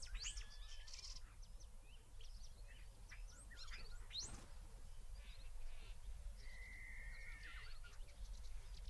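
Birds chirping and twittering faintly, many short high calls, with one steady whistled note held for about a second a little past the middle.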